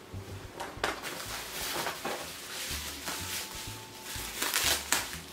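Plastic bubble-wrap packaging crinkling and rustling as it is handled and pulled open, busiest near the end, over faint background music.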